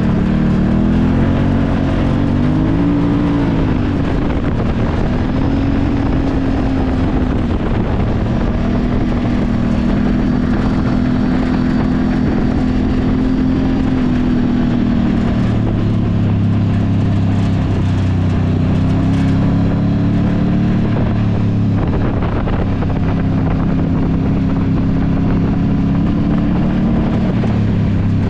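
Can-Am Maverick side-by-side's engine running as it drives off-road, its pitch rising and falling as the throttle changes.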